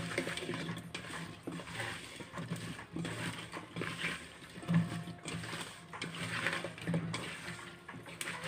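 A hand squishing cauliflower florets through thick cornflour batter in a steel bowl: wet, sticky squelching in repeated strokes, roughly one a second.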